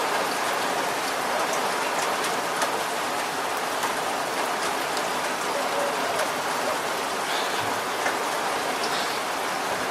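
Steady rain falling, with individual drops tapping now and then.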